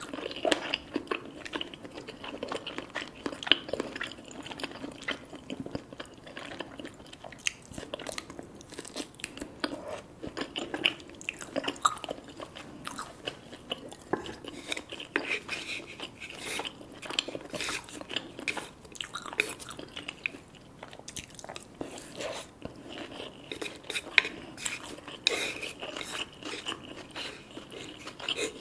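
A person chewing crunchy fried food close to the microphone, with many sharp, irregular crunches.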